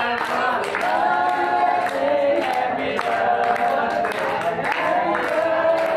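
A group of men and women singing a birthday song together, clapping along in time at about two claps a second.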